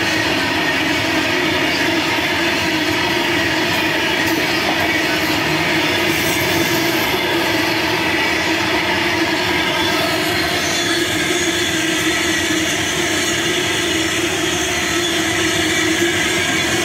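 Freight train of covered wagons rolling past close by: a steady, even rumble and rattle of wheels on rail, with a few held ringing tones over it.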